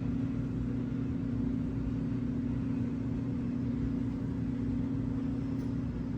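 Steady low hum and rumble of a running motor, with one constant tone held unchanged throughout.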